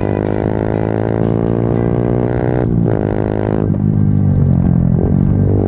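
Motorcycle engine pulling under acceleration, its note rising steadily. It breaks off about two and a half seconds in, then runs again, louder near the end.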